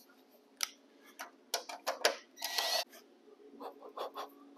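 Small clicks and taps of a hand handling a thin aluminum radiator mounting bracket and its screw, with a short scrape about halfway through.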